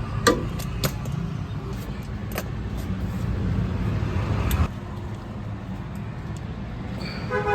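Sharp metallic clicks and taps of a spanner on the bolts as a new NOx sensor is fitted, over a steady low drone that stops suddenly with a click a little past halfway.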